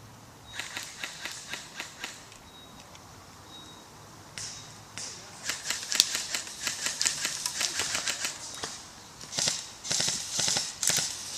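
Airsoft guns firing: a few spaced shots about half a second in, then longer strings of rapid shots from about five seconds on, with short bursts near the end.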